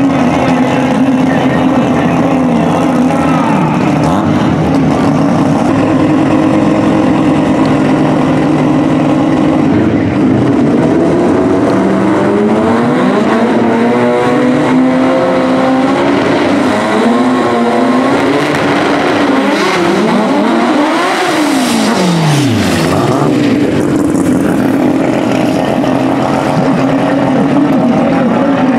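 Drag race car engines, a four-cylinder Mitsubishi 4G63 among them, running hard at the starting line. They hold a steady high rev for most of the time, and their pitch climbs and drops again and again in the middle as the cars stage and launch.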